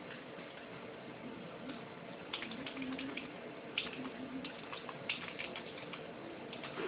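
Faint scattered clicks of a computer mouse and keyboard over a steady background hiss, starting about two seconds in.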